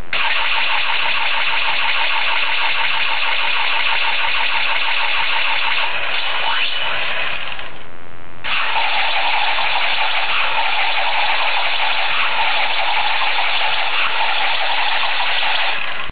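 Electronic 'Sonic Divider' finishing-move sound effect from a Rescue Force Max Divider toy weapon's small speaker: a long, continuous buzzing whir that breaks off for a moment about eight seconds in, then runs on until it cuts off.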